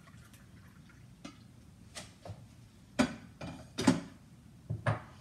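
Glass coffee carafe being set back into a drip coffee maker: a series of sharp clicks and knocks of glass and plastic, the loudest about three and four seconds in.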